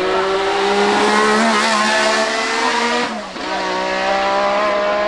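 Renault RS10's 1.5-litre twin-turbo Gordini-Renault V6 accelerating hard, its pitch climbing steadily. About three seconds in it breaks and drops sharply for an upshift, then climbs again.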